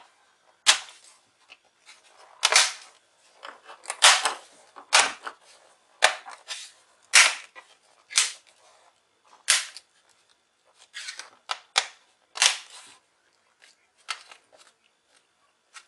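Plastic bottom cover of an HP 15-series notebook being pressed back onto the chassis, its clips snapping into place one after another: sharp snaps, about one a second, with lighter ticks between.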